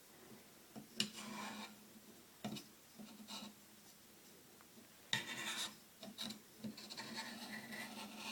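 Knife blade being stroked across a Sharpmaker ceramic sharpening stone: a series of faint, irregular scraping strokes with a few sharp ticks between them.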